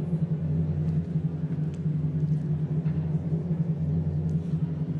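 Low, steady suspense music drone of held low notes, a tension bed under a results announcement.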